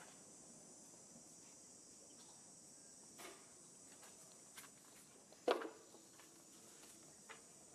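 Faint, steady high-pitched chirring of insects such as crickets, with a few soft clicks and one sharper tap about five and a half seconds in.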